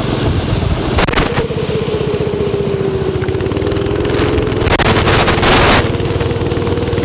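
Small go-kart engines running as karts pass one after another on a wet track, one engine's pitch dipping slightly and then climbing again as it picks up speed. There are two bursts of hiss, a short one about a second in and a louder, longer one about five seconds in.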